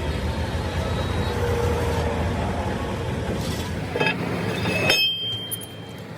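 A motor vehicle engine runs steadily, then drops away about five seconds in. There are a couple of sharp metallic knocks just before it fades.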